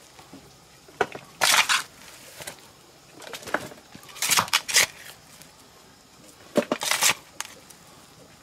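Metal hoe chopping into dry, crumbly clay soil and scraping it aside, about three strokes a couple of seconds apart, each a sharp hit followed by a gritty scrape.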